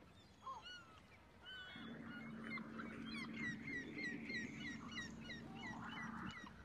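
Many small birds chirping and calling in quick short notes. From about two seconds in until near the end, a steady low mechanical hum runs under them and is the loudest sound.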